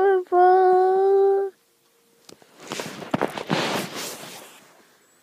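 A girl's voice drawing out a word in one long, steady sung note, then after a short pause about two seconds of soft rustling noise.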